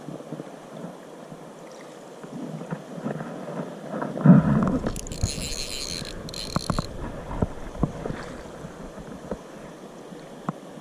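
Wind on the microphone over river water, with a loud knock about four seconds in followed by low rumbling handling noise, a brief high hiss in two parts soon after, and scattered sharp clicks.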